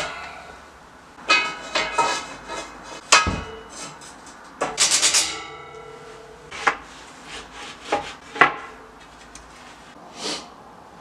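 Steel bed-frame parts clanking as they are set into place: a series of irregular knocks and rattles, several with a metallic ring, the loudest about three seconds in.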